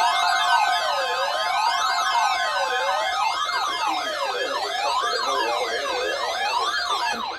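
Electronic siren sounding a slow up-and-down wail, about one sweep every second and a half. About four seconds in it switches to a much faster yelp. Steady held tones sound underneath and cut off near the end.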